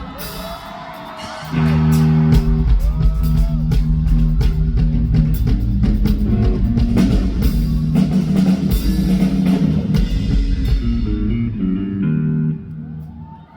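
Rock band playing live with electric guitar, bass guitar and drum kit; the full band comes in loud about a second and a half in and drops away near the end.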